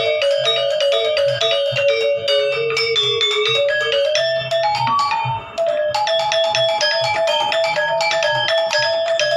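Balinese gamelan ensemble playing a fast passage of ringing metallophone strikes in quick succession, with a short break about halfway through before the music picks up again.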